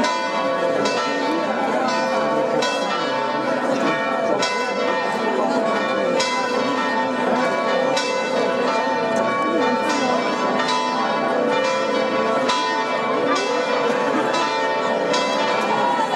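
Church bells pealing, struck in a steady rhythm with each stroke ringing on under the next, over a murmur of voices.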